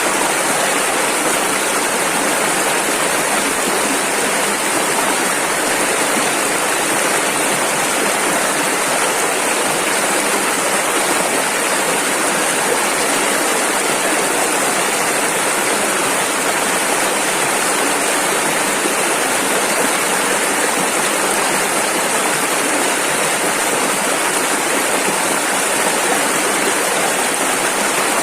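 Rushing river water, a steady full hiss of fast-flowing rapids with no change in level.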